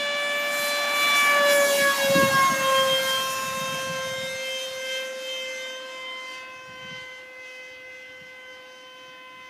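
Electric motor whine of a radio-controlled F-18 model jet taking off and climbing away: a high, steady whine that dips slightly in pitch about two seconds in as the plane passes, then fades as it flies off.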